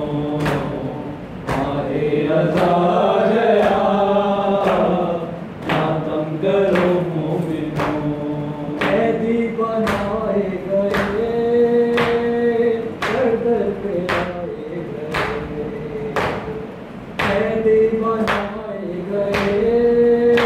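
Men chanting a noha, a mourning lament, with the voices held and sliding, over a steady beat of sharp chest-beating (matam) strikes about once a second.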